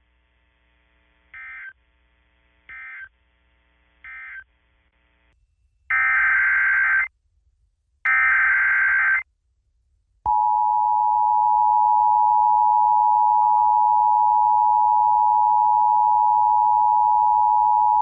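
Emergency Alert System tones. First come three short, faint data chirps, the end-of-message bursts of the previous alert. Then two loud, screechy SAME header bursts of about a second each. About ten seconds in, the steady two-tone EAS attention signal starts and holds for about eight seconds, announcing a tornado warning.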